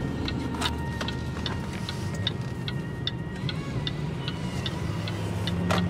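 Car's turn-signal indicator clicking at an even pace of about two to three ticks a second, over the steady engine and tyre hum inside the cabin, with a single louder knock near the end.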